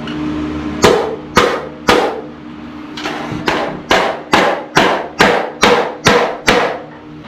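A hammer striking metal about a dozen times, roughly two blows a second with a short pause after the third, each blow ringing briefly, over a steady low hum.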